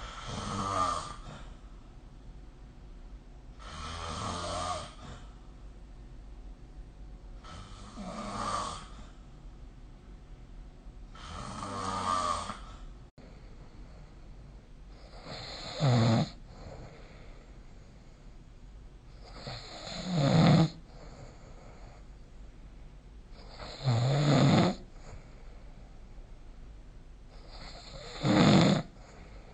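A sleeping person snoring in a steady rhythm, about one snore every four seconds, eight in all. After about thirteen seconds the snores turn louder and shorter.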